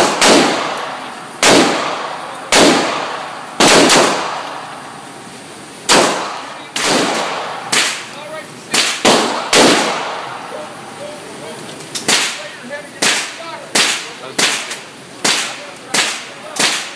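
Pistol shots echoing in an indoor range: about a dozen sharp cracks at an uneven pace over the first ten seconds, each with a ringing tail. After a short lull, a faster, more even run of fainter, shorter cracks follows.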